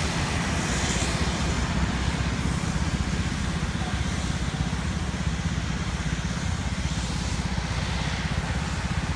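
Distant engines of a small twin-engine commuter plane taxiing at the far end of the runway before take-off: a steady rumble with a hiss above it that does not change.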